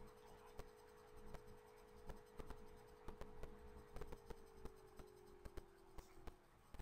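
Near silence: faint room tone with scattered soft clicks, several a second, and a faint steady hum that sags a little in pitch and fades out near the end.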